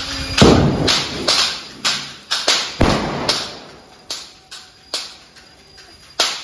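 Diwali firecrackers going off in a rapid, irregular series of about a dozen sharp bangs, each with a short echoing tail, spacing out and growing fewer in the second half.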